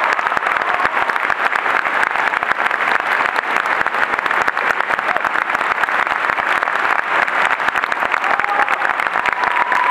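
A large audience applauding steadily: many hands clapping at once in a dense, even patter that carries on without a break.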